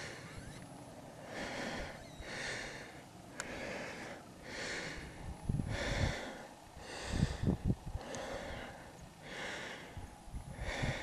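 A person breathing hard and close to the microphone, about one breath a second. A few low bumps of handling or wind on the mic come around the middle.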